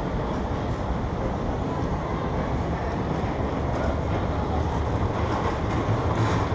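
Steady rumbling background noise of a subway station heard from a descending escalator, growing a little louder toward the end.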